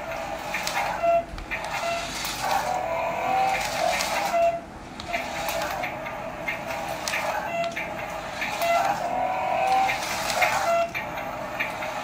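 Toy remote-control car running across a tiled floor: a high, wavering whir with a few short breaks as it stops and sets off again.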